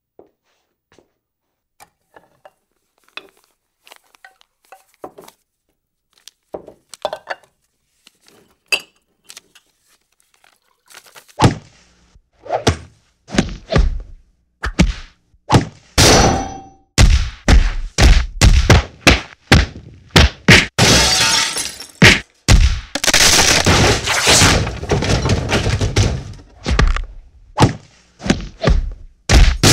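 Staged fight sound effects. Sparse light clicks and taps come first, then about 11 seconds in a rapid run of heavy thuds, crashes and breaking, shattering glass.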